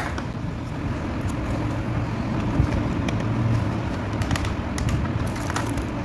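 Steady low background rumble, with a few faint clicks and rustles as a plastic toy remote control and its clear plastic packaging tray are handled.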